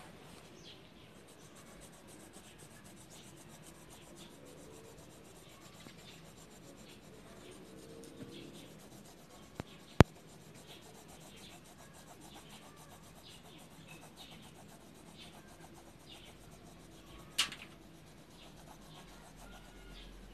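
Faint rubbing and light scratching of a pencil and hand against a sheet of lined notebook paper, in short strokes about once or twice a second. A sharp click sounds about halfway through and a louder tap near the end.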